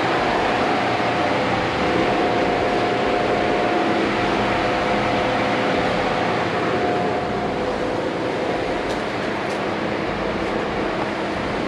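Car driving at a steady speed: constant road and engine noise with a steady drone, easing slightly about seven seconds in.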